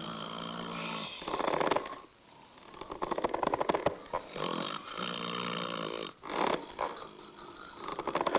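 Snoring and whistling in sleep: a rattling snore about every two to three seconds, four in all, each followed by a steady, whistle-like pitched tone.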